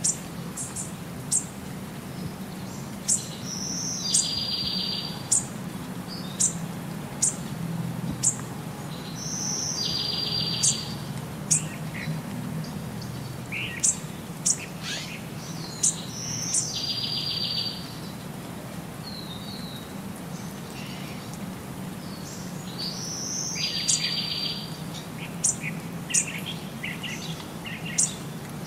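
Bird calls: short, sharp high chirps about once a second, with a longer raspy call of about a second repeating every six or seven seconds, over a steady low hum.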